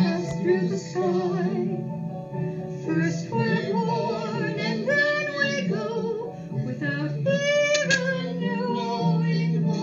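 A woman singing a slow song over a steady low instrumental accompaniment, with a held, wavering note about eight seconds in.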